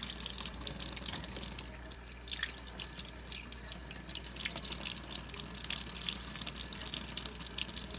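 Kitchen tap running into a sink, with a steady flow and frequent small splashes and spatters.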